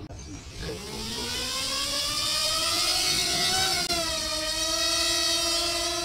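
Parrot Swing minidrone's four propeller motors spinning up with a rising whine as it lifts off, settling into a steady hover whine about four seconds in.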